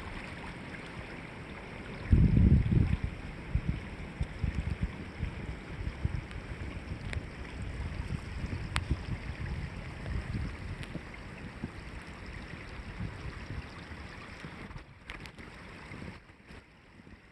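A creek running steadily with a rushing hiss, wind buffeting the microphone in low rumbles, hardest about two seconds in. The sound drops away and gets quieter near the end.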